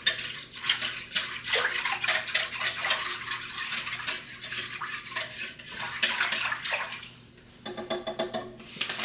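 A whisk stirring au jus gravy mix into water in a crock pot: rapid clinking and scraping against the pot with the liquid sloshing. It pauses briefly near the end, then a few more clinks follow.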